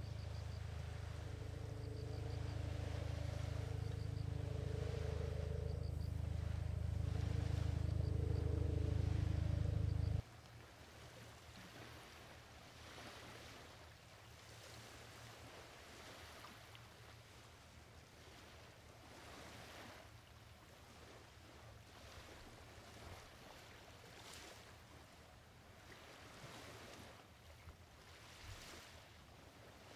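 Small fishing boat's engine running with a low, steady drone that grows louder for about ten seconds, then stops abruptly. After that there is only faint lapping surf and wind along the shore.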